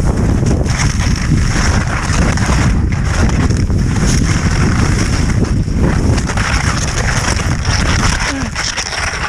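Wind buffeting the microphone during a fast ski descent, with the continuous hiss and scrape of skis sliding over snow.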